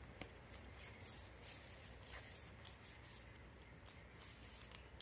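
Near silence, with faint rustles and light ticks of a stack of trading cards being handled and fanned.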